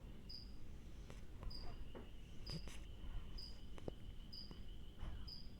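A short high-pitched chirp repeating about once a second, over a faint steady high tone and a few soft clicks.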